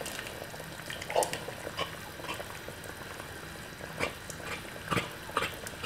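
Cooked brown beans and their liquid sliding out of a glass jar into a pot of simmering broth, with soft plops and splashes about 1, 4 and 5 seconds in over the broth's faint bubbling.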